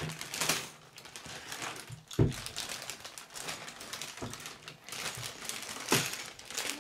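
Clear plastic bags of K'nex pieces crinkling and rustling as they are pulled and worked open, with a few sharp clicks and knocks, the loudest about two seconds in.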